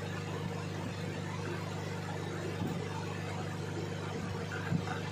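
Hot-air rework station blowing steadily with a low hum while it heats the BIOS flash chip to desolder it from the motherboard. There is a light tap near the end.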